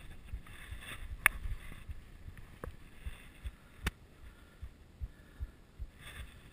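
Rider's heartbeat picked up by the camera: fast, regular low thumps about two and a half times a second, quickened by the exertion of riding. A few sharp clicks stand out over it.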